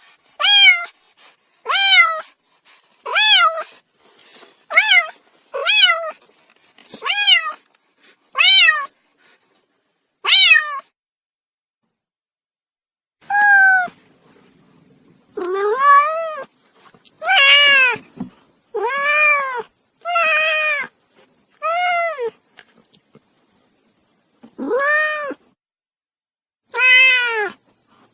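Kitten meowing over and over. First comes a run of about eight short, high meows roughly a second apart; then, after a pause of a few seconds, a run of longer, lower meows every second or two. Each meow rises and falls in pitch.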